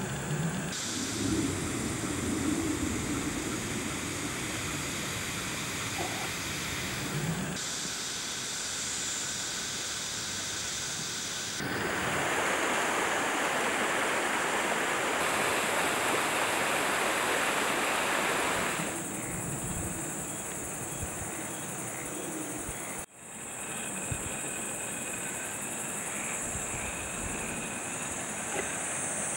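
Outdoor location sound dominated by a steady rush of flowing river water. Its level and tone change abruptly several times between shots, and it is loudest for several seconds in the middle. A low rumble sits under the first few seconds.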